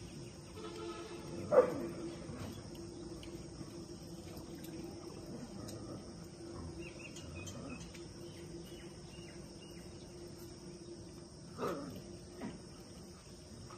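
Steady chirring of insects, with two sudden loud sounds: a sharp one about one and a half seconds in and a weaker one near the end.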